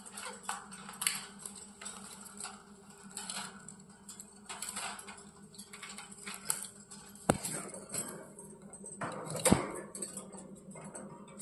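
A pet parrot making short chirps and clicks at irregular intervals, with two sharp knocks, one near the middle and one later, the second the loudest.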